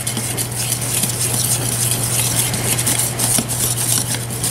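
Wire whisk beating a frothy beer batter in a bowl: a steady run of quick scraping, splashing strokes.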